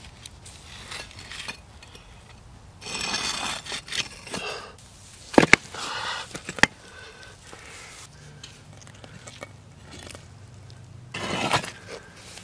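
Flat stones and a wooden stick scraping over rock, coals and ash at a primitive stone oven, with a few sharp clicks of stone knocking on stone about halfway through.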